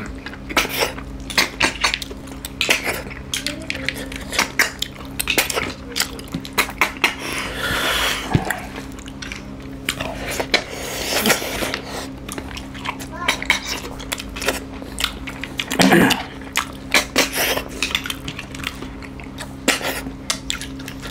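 Close-miked eating by hand from ceramic plates: frequent small clicks and clinks of fingers, food and snail shells against the plates, with mouth and eating noises. A steady low hum runs underneath.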